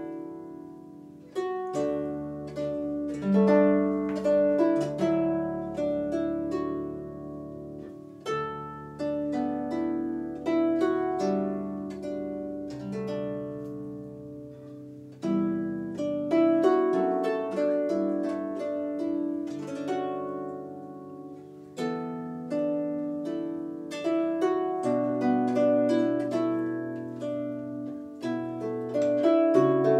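Scottish lever harp played solo: a slow contemporary Scottish air, plucked melody notes that die away over low bass notes left to ring for several seconds.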